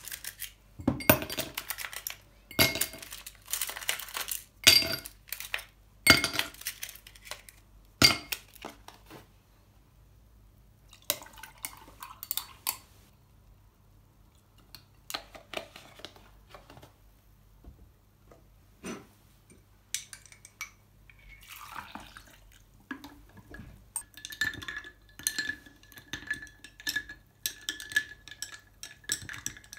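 Ice cubes dropped one by one into a tall drinking glass, each landing as a sharp ringing clink. Liquid is then poured in. Near the end a metal straw stirs the iced drink, clinking quickly and repeatedly against the ice and the glass, which rings steadily.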